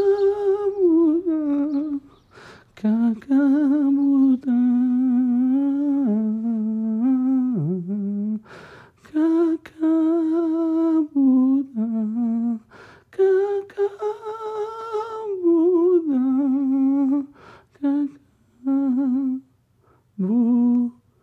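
A single voice humming a slow melody with no accompaniment, in phrases of a few seconds broken by short pauses, the pitch wavering on held notes.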